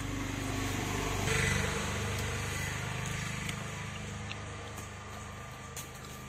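An engine or motor running steadily, a low drone, with a short burst of rustling noise about a second in.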